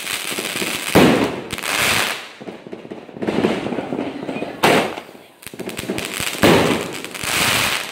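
A 2-inch, 12-shot firework cake firing shells one after another. Three sharp launches come about a second in, near five seconds and near six and a half seconds, and each is followed by a second or two of loud crackling.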